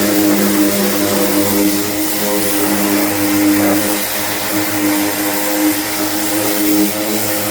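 Power sander running steadily on body filler: a continuous droning hum over a hiss.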